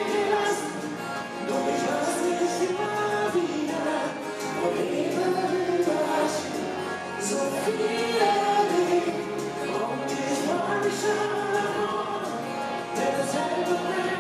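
Live band music: a woman singing the lead vocal over acoustic guitar and electric bass.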